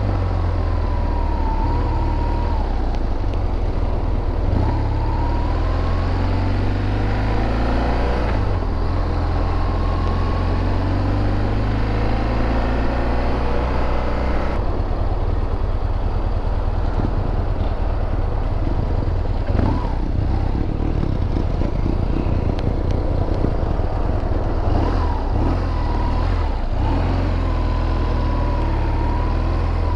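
Motorcycle engine running at riding speed on beach sand, its pitch shifting in steps, mixed with wind noise on the microphone. The sound changes abruptly about halfway through.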